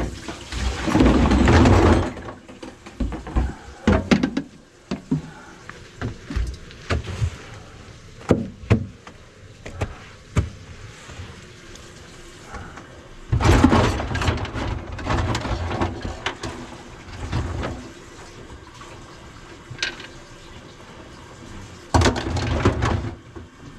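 Knocks, clicks and clatter of hands and tools working on a clogged kitchen sink drain, broken by three louder rushing, noisy bursts: one at the start, one about halfway through and one near the end.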